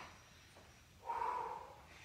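A single heavy, breathy exhale from a person about a second in, against quiet room sound.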